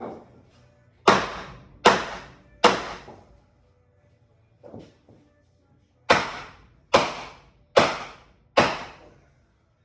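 Hammer blows on a wooden pounding block, knocking a wall sideways. There are three sharp strikes about 0.8 s apart, a lighter knock, then four more strikes at the same pace.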